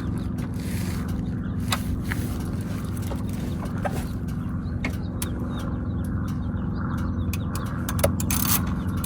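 Car engine idling steadily, with a few light clicks and knocks over it.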